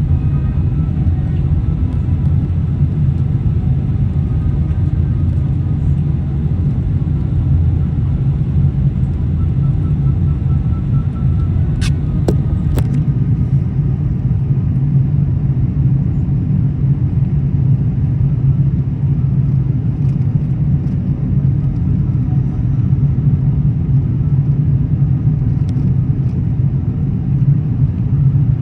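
Airbus A380 airliner giving a steady, unbroken low rumble, with a few short clicks about twelve seconds in.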